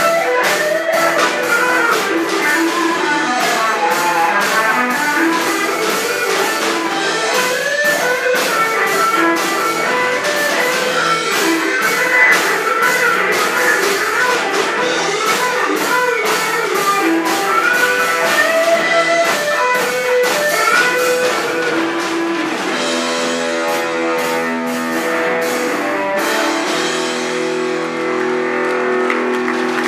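Live rock band playing: an electric guitar takes a solo of bending, gliding lead lines over bass, drums and keyboard. About three-quarters of the way through, the lead gives way to long held chords.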